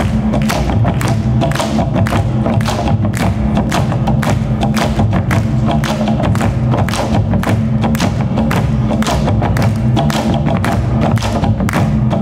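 Drum ensemble playing a steady, even beat of sharp strokes on large drums, over a sustained low drone.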